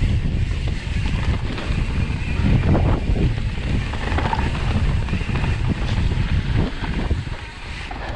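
Wind buffeting the microphone of a camera riding on a mountain bike, mixed with the tyres rumbling over a dirt trail and the bike clattering over bumps.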